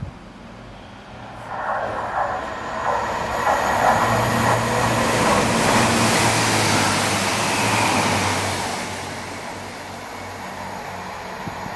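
A Chiltern Railways diesel multiple unit passing close along the platform at speed: diesel engine hum and wheels running on the rails, building over about two seconds, loudest for several seconds, then easing off as it draws away.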